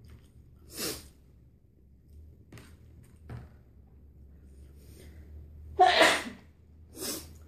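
A person sneezing: a loud sneeze about six seconds in, followed by a shorter one about a second later, with a few fainter short bursts earlier.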